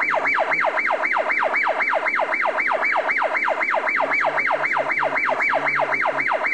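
Electronic emergency siren in a fast yelp: one tone sweeping down from high to low about five times a second, over and over.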